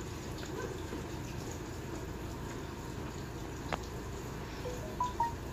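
Water running from a sink tap as hands are washed under it, a steady hiss. A sharp click comes about three and a half seconds in, and a few short high squeaks come near the end.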